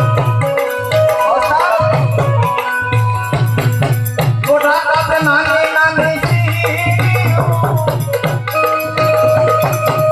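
Gujarati santvani devotional folk music: tabla keeping a steady beat with other hand percussion, under a wavering melodic line.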